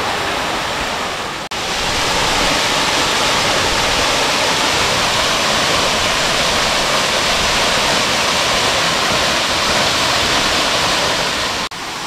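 Small waterfall pouring into a rocky pool: a steady rush of falling and splashing water. It breaks off for an instant about one and a half seconds in and comes back a little louder, and breaks again just before the end.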